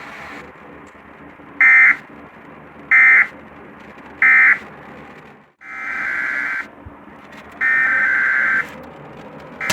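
Emergency Alert System SAME digital data bursts, a harsh buzzy warble. First come three short bursts about 1.3 s apart, the end-of-message code closing the previous alert. After a pause, two longer one-second bursts start the next alert's header, and a third begins at the very end.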